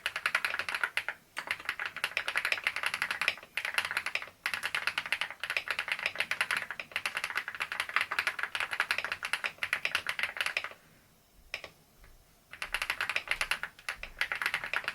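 Fast, steady typing on a foam-packed Leobog Hi98 mechanical keyboard with Seiya switches and XDA-profile keycaps, giving a low-pitched, thocky keystroke sound. The typing stops for about two seconds about three-quarters of the way through, with a couple of single taps, then carries on.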